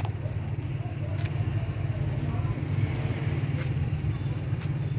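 Steady low wind rumble buffeting a phone's microphone, with faint voices in the background and a few light clicks.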